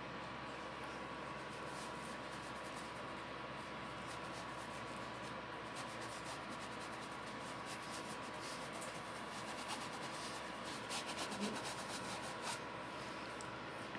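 Paintbrush working paint onto fabric, a faint scratchy rubbing with quick little ticks that grow busier from about halfway through, over a steady background hiss.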